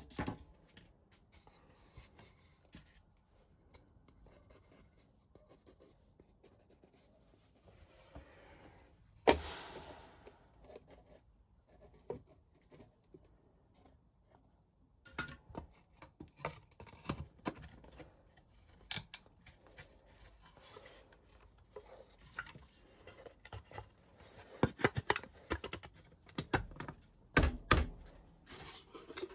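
Scattered small wooden knocks, clicks and scrapes from handling and fitting the wooden parts of a box, with one sharp knock about nine seconds in and a quick run of knocks near the end.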